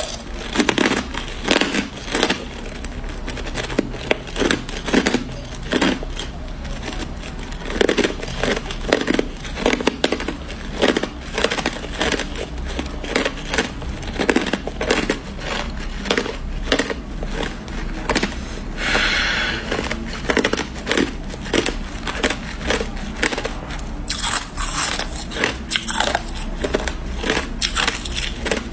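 Hard clear ice being bitten and crunched between the teeth, close to the microphone, in quick irregular crunches several times a second. A brief hiss comes about two-thirds of the way through.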